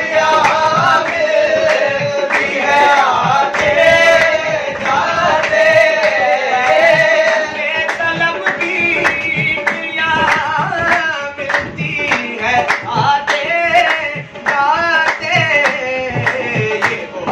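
Qawwali performed live: several men singing in a lead-and-chorus style over a harmonium, with a dholak drum and steady rhythmic hand clapping.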